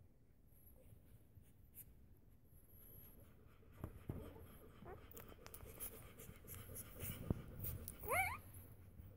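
Five-day-old English Springer Spaniel puppies shuffling and rustling on a blanket against their nursing mother, with a soft click a little past seven seconds. About eight seconds in, one puppy gives a short, rising squeal.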